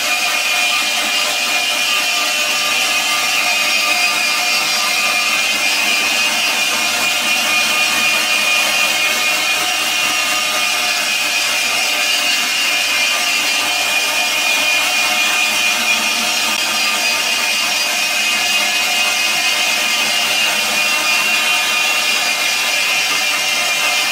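Electric meat grinder running steadily as it grinds tofu, its motor giving a steady high whine over a grinding hiss.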